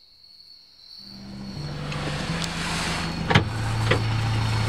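Car driving, heard from inside the cabin: engine hum and road noise fade in about a second in, the engine note dropping in steps, with a few sharp clicks.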